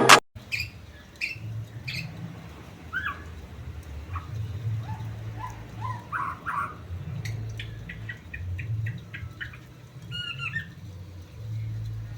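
A small songbird giving scattered short chirps and calls, with a quick run of about ten clicking notes about seven seconds in, over a steady low hum.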